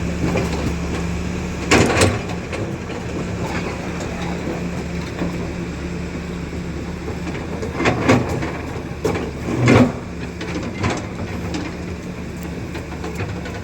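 Caterpillar 320D2 hydraulic excavator running steadily under its diesel engine while working, with several loud sudden noises from the work about two seconds in and again around eight, ten and eleven seconds in.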